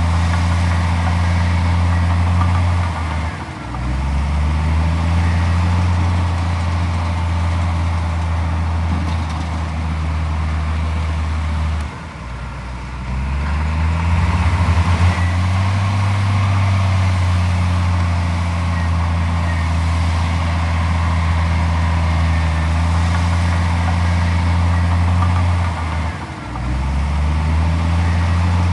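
Komatsu D41P bulldozer's diesel engine running steadily under load. Its deep note sags about 3.5, 12 and 26 seconds in, each time briefly, and climbs back up.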